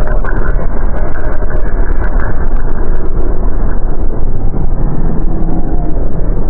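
Dark ambient horror soundscape: a loud, steady, dense low rumble like heavy machinery, with faint held tones drifting through it.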